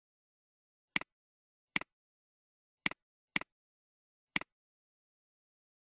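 Five computer mouse clicks, spaced unevenly, each a sharp press followed at once by a softer release click, against dead silence.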